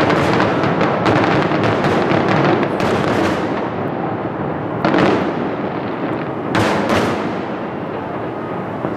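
Aerial fireworks bursting: a dense run of bangs and crackle for the first three seconds or so, then two sharp single bangs about five and seven seconds in, and a fading rumble near the end.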